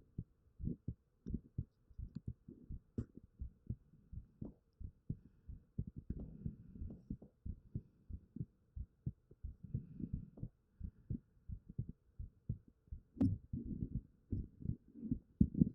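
A human heartbeat heard close up as a steady run of low, muffled thumps, with a sharper click about 13 seconds in.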